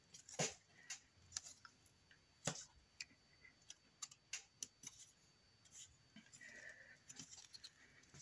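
Faint, scattered clicks and taps as fingers press a plastic shape cutter down into a sheet of polymer clay on a cutting mat, with a soft rustle near the end.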